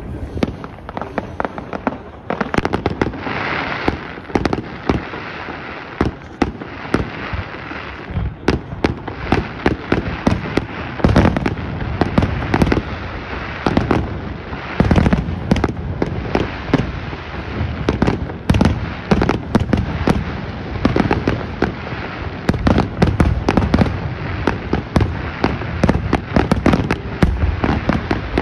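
Aerial fireworks display: a steady barrage of sharp bangs as shells burst in quick, irregular succession, growing denser and louder about eight seconds in.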